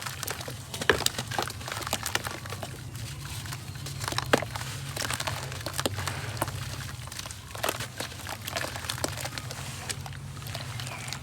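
Golden sand crumbling, with many irregular soft crunches and crackles.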